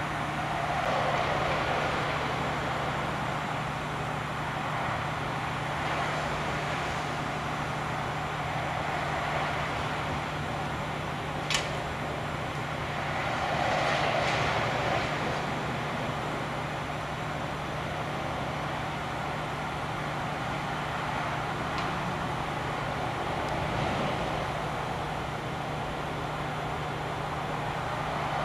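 PKP class TKp (Śląsk) 0-8-0T steam tank locomotive standing in steam: steady hiss of escaping steam over a steady low hum, swelling briefly twice. A single sharp metallic click about 11 seconds in.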